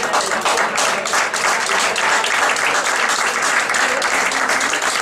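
Audience applauding: many hands clapping together in a dense, steady patter that swells up at the start.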